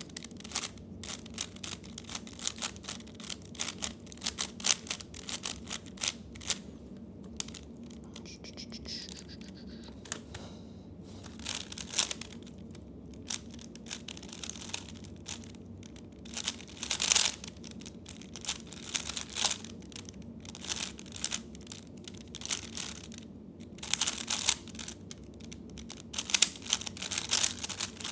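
A 3x3 speedcube being turned fast during a solve: rapid bursts of clicking and clattering from its plastic layers, broken by short pauses.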